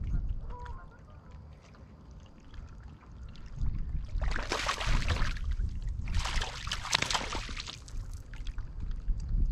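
Hooked bass splashing and thrashing at the water's surface as it is brought to the boat: two splashes, each about a second and a half long, starting about four seconds in.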